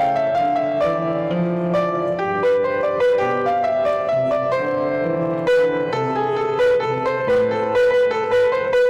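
Piano music: held chords with a melody moving above them.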